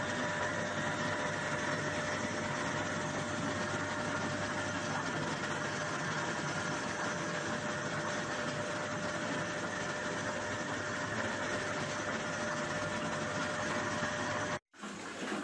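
Soybean washing machine for tempe running steadily: a motor drone under a constant whine. It cuts off abruptly about a second before the end, followed by a brief stretch of different, duller noise.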